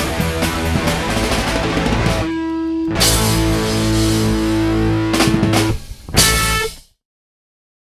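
Outro rock music with electric guitar and drums: a steady beat until about two seconds in, then a held note and a final hit, stopping dead about seven seconds in.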